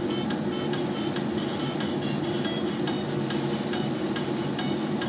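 Hot oil sizzling steadily around turon (glutinous-rice spring rolls) deep-frying in a wok, with many small crackling pops.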